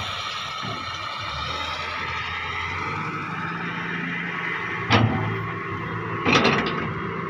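Hydraulic excavator working: its engine runs steadily under a whine that shifts in pitch, with two sharp knocks, one about five seconds in and a louder, longer one about a second and a half later.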